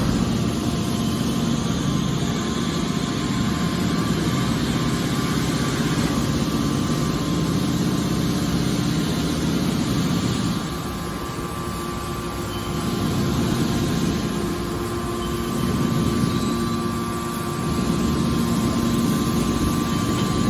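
Hydraulic aluminium can baler running, its pump and motor giving a steady machine hum that dips slightly about halfway through and again a few seconds later.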